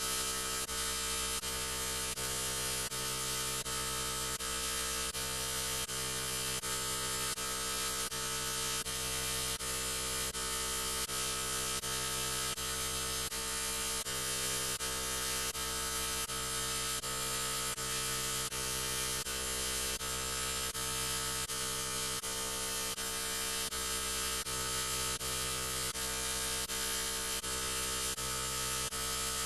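A harsh, steady electronic buzz: a loud hum thick with overtones and hiss, unchanging in pitch and level, with faint clicks at a regular beat a little under a second apart.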